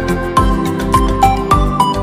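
Background music: a melody of short, high notes over a steady beat.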